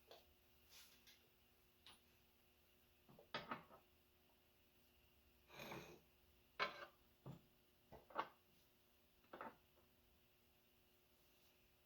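Quiet, scattered clinks and knocks of metal parts and tools being handled while setting up a lower ball joint and control arm in a shop press, with a short scraping rustle a little before halfway.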